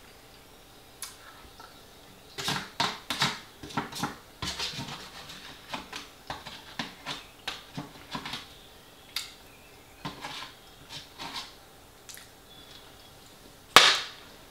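Metal fork scraping and tapping against a foil pie tray in a run of short, irregular clicks and scrapes as the last of the pie is scooped out. A much louder clatter comes near the end.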